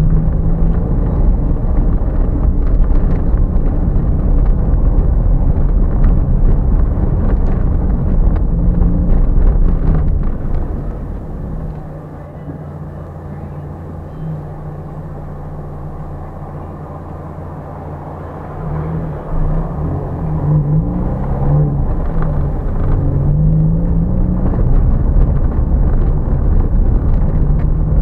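Car driving over cobblestone paving, heard from inside the cabin: the engine runs under a low rumble from the tyres on the stones, with small rattles and knocks. It goes quieter about eleven seconds in as the car slows at a crossing, then the engine picks up again with rising pitch as the car accelerates away.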